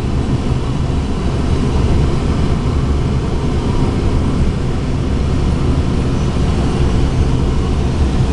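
A car in motion, heard from inside the cabin: steady road and wind noise, an even low rumble with no break.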